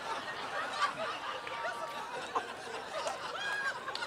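Audience chatter with light laughter: many overlapping voices, none of them clear speech.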